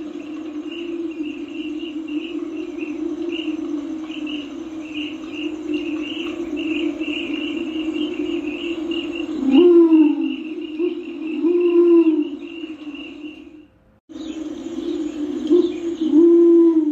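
Torresian imperial pigeon giving deep, arched cooing notes, four times: about ten seconds in, about twelve seconds in, and twice near the end. Steady insect chirring and a continuous low hum run underneath, and the recording drops out briefly a little before fourteen seconds.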